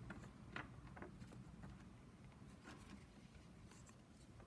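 Near silence with a few faint, soft ticks and rustles of craft-foam pieces and green connector pegs being handled and pressed together.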